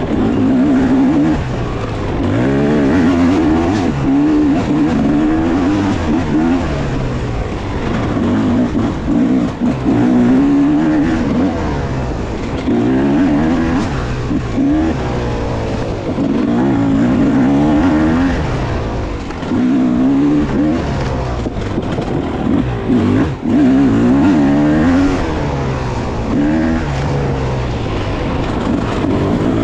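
250cc two-stroke Yamaha dirt bike engine revving up and down over and over as the throttle is opened and closed, its pitch climbing and dropping every second or two, with a few brief throttle chops.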